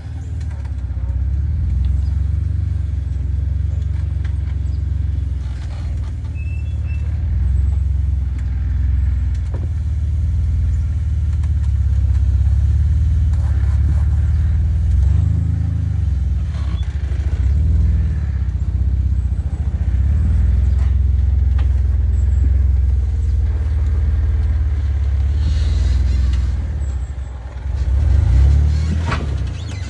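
Lifted Jeep Wrangler's engine running at low revs as it crawls over rocks, with the pitch rising briefly a few times under throttle, most clearly near the end.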